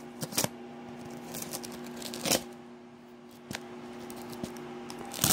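Scissors cutting into the packaging of a box: a few brief snips and scrapes of the blades against plastic film and the box, over a faint steady hum.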